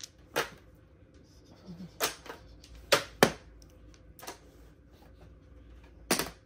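Mahjong tiles clacking down on the table as they are played, about six sharp, separate clacks at uneven intervals, the loudest two close together about three seconds in.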